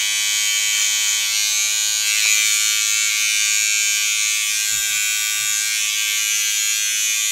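Corded electric hair clippers running with a steady buzz while trimming a full beard.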